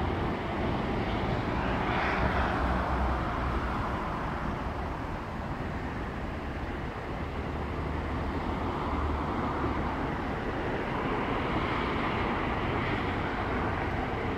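Distant EMD G-16 diesel-electric shunting locomotive running steadily: a low engine drone under a rushing noise that swells about two seconds in and again near the end.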